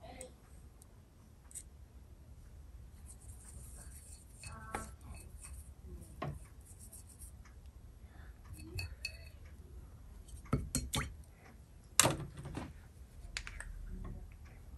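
Light, scattered clinks and taps of paint dishes and jars being handled, with a few louder knocks, the sharpest about twelve seconds in.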